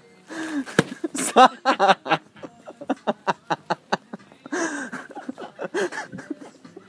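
Hard laughter close to the microphone: quick runs of ha-ha pulses, loudest about a second and a half in, broken by breathy gasps near the start and again about four and a half seconds in.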